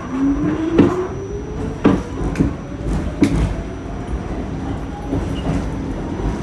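R46 subway car accelerating out of a station: the traction motors whine, rising steadily in pitch over the first few seconds. Several sharp clunks from the car and wheels come over the running noise.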